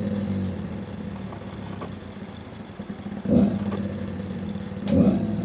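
A dog growling in a low, continuous rumble, with two louder surges about three and five seconds in. It is a mild, half-hearted growl from a happy dog rather than an angry one.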